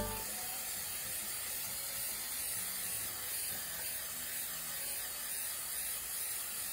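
Aerosol can of Rust Check High Build Stone Shield undercoating spraying steadily, one continuous hiss.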